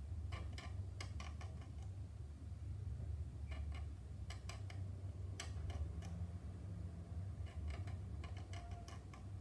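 A scriber scraping along the panel lines of a plastic model car body shell, heard as short scratchy clicks in several quick clusters, over a steady low hum.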